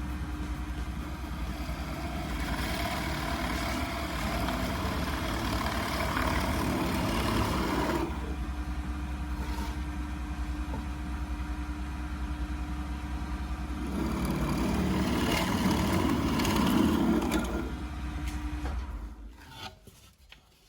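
Benchtop drill press motor running with a spade bit boring into wood, cutting in two passes, the first a few seconds in and the second past the middle. The motor is switched off near the end and spins down.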